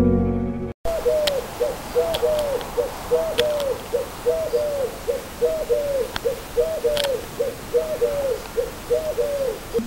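Pigeon cooing over and over in a steady rhythm, about two coos a second and often in pairs, starting about a second in. A few faint clicks sit under it.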